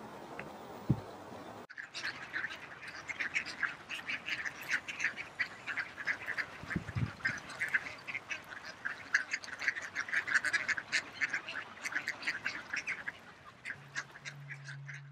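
A flock of ducks quacking, many short calls overlapping densely. The calls start abruptly about two seconds in, after a low rumble.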